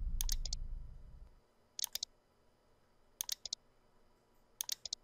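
Computer mouse clicking: four quick double clicks, about one and a half seconds apart. A low hum fades away over the first second and a half.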